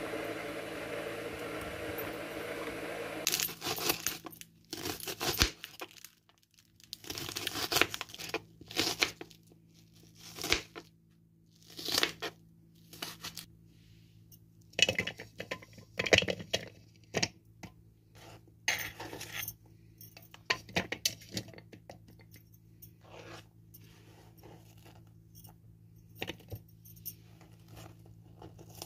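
Scattered clinks, knocks and rattles of a plastic mini food chopper's bowl and lid being handled on a kitchen counter as onion pieces go in, with quiet gaps between, over a faint steady hum. A steady hiss runs for the first few seconds and stops suddenly.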